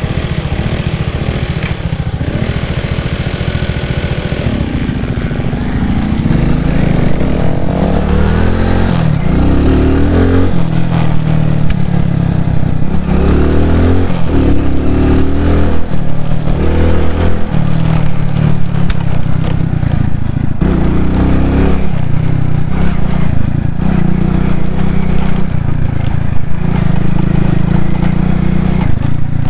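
Small moped engine idling, then riding: from about six seconds in it gets louder and its pitch climbs and drops again and again as the throttle opens and the gears change.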